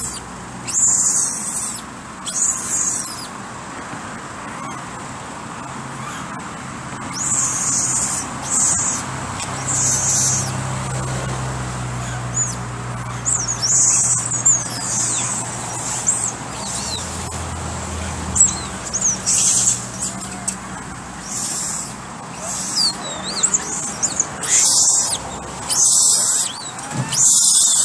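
Birds chirping in short, high-pitched bursts that come irregularly every second or two, over a faint low hum.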